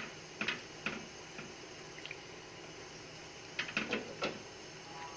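A spatula stirring sliced bamboo shoots in broth in a wok, the liquid sloshing, with short sharp knocks of the spatula against the pan: a few singly in the first two seconds, then several in quick succession about three and a half seconds in.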